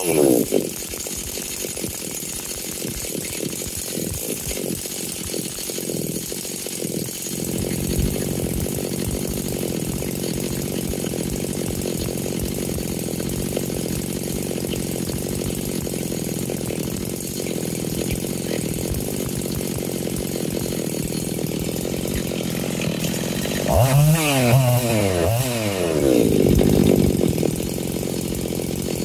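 Husqvarna 385XP two-stroke chainsaw engine running on its first start after a rebuild, being heat-cycled and bench-tuned. It runs a little unevenly for the first few seconds, then settles into a steady fast idle, and is revved briefly twice near the end.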